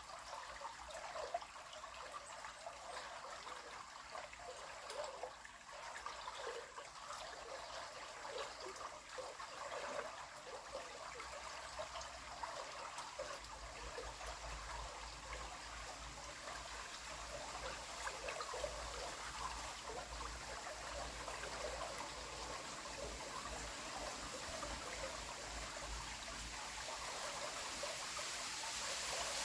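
River water running and trickling: a steady, even rush that grows slowly louder near the end.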